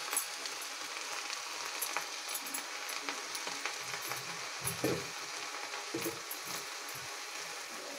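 Sunusunia (water clover) greens sizzling steadily in hot oil in a kadai, with faint clinks and a few soft knocks of the spatula around the middle.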